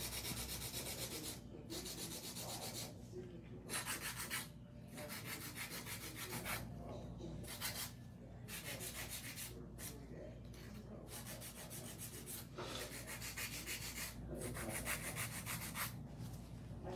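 Hand nail file rubbing back and forth across acrylic nail tips to shape them, in runs of quick rasping strokes broken by short pauses, over a faint steady hum.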